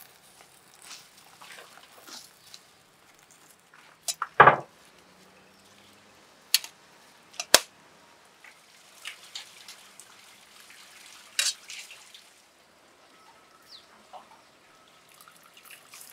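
Leafy greens being washed by hand in a stainless steel pot of water: intermittent splashing and dripping, with a few sharp knocks against the pot. The loudest splash comes about four seconds in.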